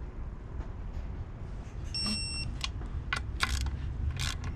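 A short electronic beep lasting about half a second, about two seconds in, over a low steady rumble, with several sharp clicks.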